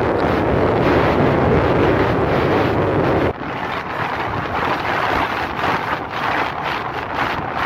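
Wind buffeting the microphone of a camera moving along a road, mixed with the noise of the moving vehicle. About three seconds in, the noise suddenly drops to a lower, gustier rush.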